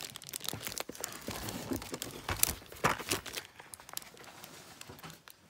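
Packaging rustling and crinkling as items are handled, with scattered light clicks and taps. It quietens about three and a half seconds in.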